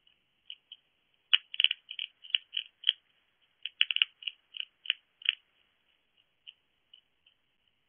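Hedgehog crunching dry food from a shallow dish: two flurries of sharp clicks and crunches, each about a second and a half long, with scattered single ticks before and after.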